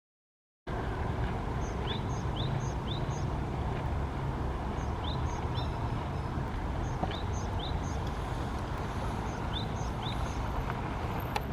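Japanese tit singing: short runs of quick two-note phrases, repeated every few seconds over a steady low rumble. The sound starts abruptly about half a second in.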